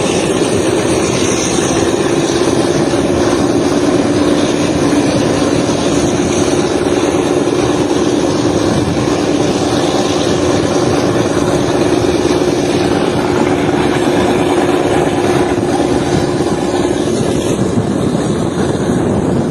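Diesel-hauled passenger train running: a loud, steady rumble with a steady two-note hum, the lower note dropping away near the end.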